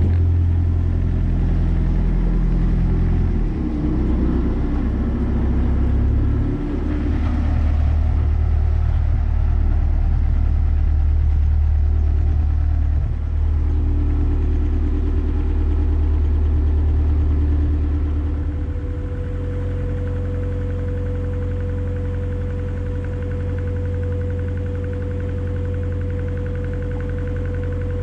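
Narrowboat's diesel engine running under way: a steady low beat that shifts a few times in the first half, then settles a little quieter about two-thirds of the way through, with a steady hum over it.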